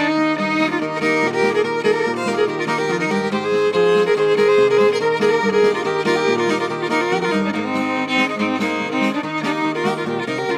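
Fiddle playing the instrumental intro of a country/bluegrass-style song, with lower accompanying notes underneath.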